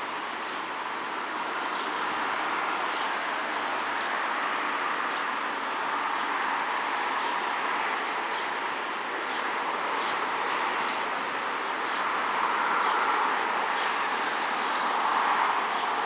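Outdoor ambience with small birds chirping over and over above a steady rushing noise that swells twice near the end.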